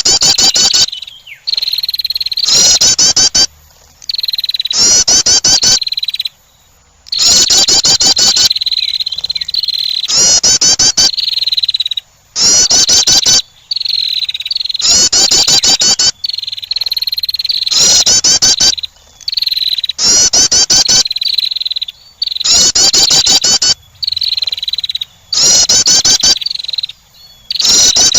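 Female wren's call played on a loop to attract birds: loud, rapid high-pitched rattling trills over a steady high whistle, repeated about every two to three seconds.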